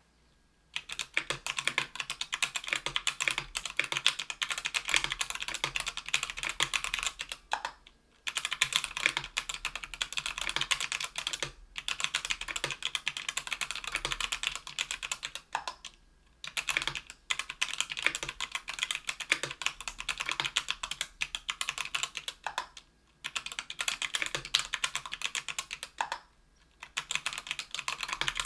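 Fast typing on a mechanical keyboard with unlubed CannonKeys Lilac tactile 65g switches in an aluminium 60% case on an aluminium plate: a dense run of keystroke clacks in bursts of several seconds, broken by short pauses.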